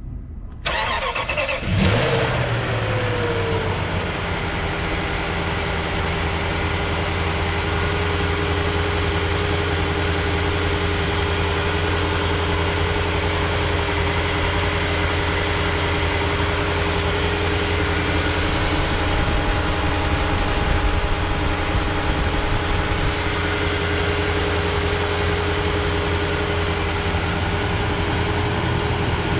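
2005 Range Rover HSE's 4.4-litre V8 starting from cold: it catches about a second in, flares briefly and drops back, then settles into a steady cold idle.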